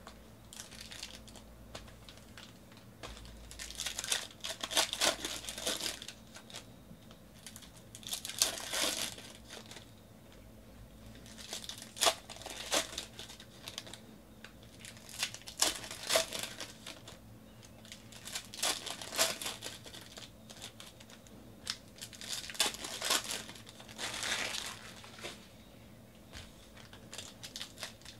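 Foil wrappers of Panini Prism football card packs being torn open and crinkled one after another, a burst of crinkling every three or four seconds.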